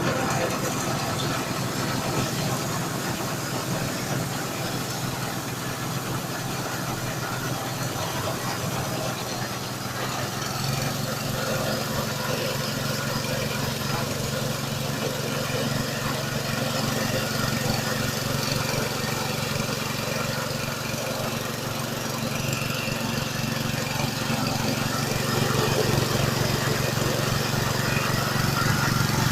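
Engine-driven multifunction grass chopper machine running steadily while grinding rice husk, its low drone growing stronger about eleven seconds in.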